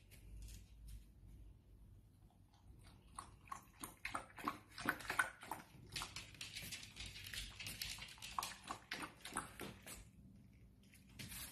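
A cattle dog cross puppy lapping water from a stainless steel bowl: a quick, rhythmic run of wet laps that starts about two and a half seconds in and stops about ten seconds in.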